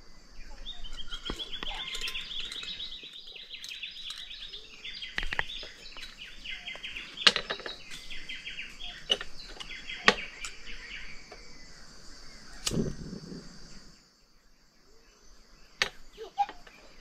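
A bird calling in a long, rapid chattering series over a steady high insect drone, broken by several sharp knocks. The chattering fades out after about twelve seconds, and the drone stops a couple of seconds later.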